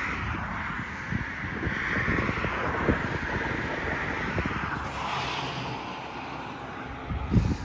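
Wind buffeting the microphone with a crackling rumble, and birds calling in the background; a single thump sounds near the end.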